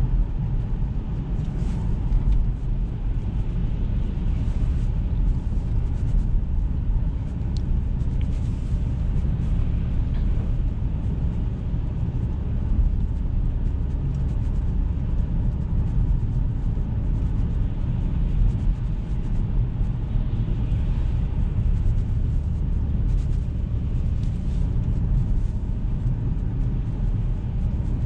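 Steady low rumble of engine and tyre noise inside the cabin of a Jaguar XF 2.7 V6 diesel on the move.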